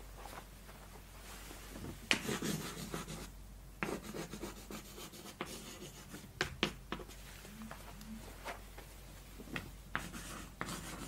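Chalk writing on a blackboard: scratchy strokes and short taps as words are written out, starting about two seconds in.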